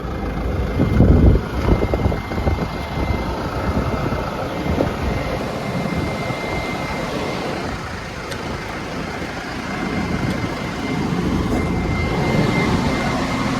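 Cummins diesel engine of an XCMG CV83PD vibratory roller compactor running steadily, with a thin, steady high-pitched whine over it. A few loud knocks come about a second in.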